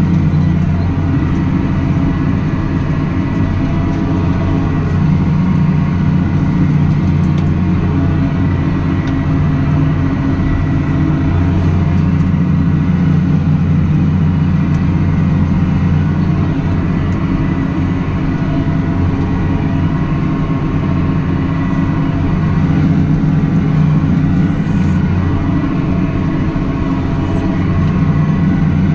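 Farm tractor engine running steadily at working speed while pulling a hay rake, an even drone that holds the same pitch throughout.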